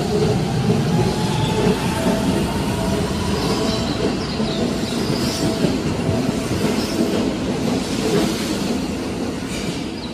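Keihan 3000 series train pulling away along the platform: steady wheel and track rumble with a faint motor whine that rises slightly in pitch, and a few short high wheel squeals in the second half. It fades a little as the train draws away.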